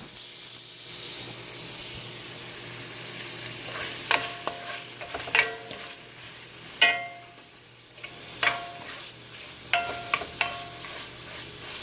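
Minced pork sizzling as it fries in a pan, stirred with a metal utensil. The utensil strikes the pan with sharp ringing clinks, about eight of them from a third of the way in.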